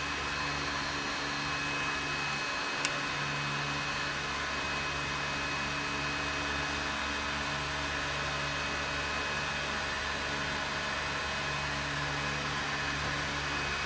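Steady whirring hum and hiss from the load-test bench equipment running under a current draw of about 105 amps, with one faint click about three seconds in.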